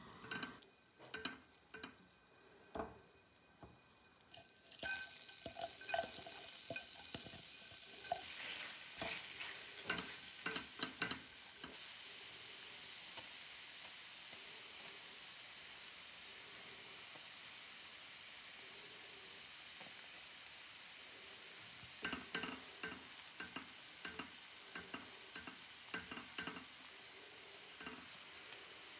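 Butter melting in a nonstick frying pan, then minced garlic frying in it with a steady sizzle from about a third of the way in. A silicone spatula stirs and scrapes the pan in spells, early on while the butter melts and again near the end.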